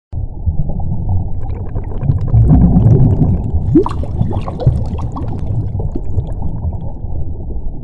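Underwater bubbling sound effect: a muffled low rumble full of gurgling bubble pops that swells about two seconds in and eases off toward the end.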